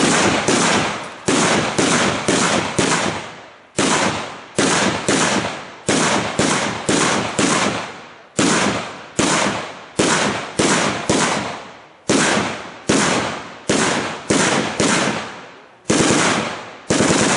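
Mascleta: a fast, rhythmic string of loud ground salutes going off one after another, about two to three bangs a second in quick groups, each bang echoing away before the next.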